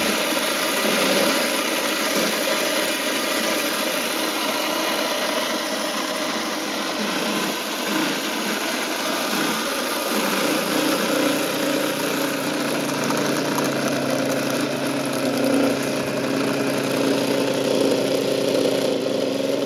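Vevor 3000 W electric grain mill running steadily while grinding dried deer corn into feed. The motor's hum becomes a clearer, steadier tone about halfway through.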